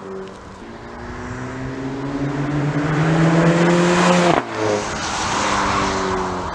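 Mk7 Volkswagen Golf GTI's turbocharged four-cylinder, fitted with a Borla S-Type exhaust, accelerating hard past the microphone. The exhaust note climbs steadily in pitch and grows louder for about four seconds, then drops sharply as the car goes by, and it carries on at a lower pitch, fading away.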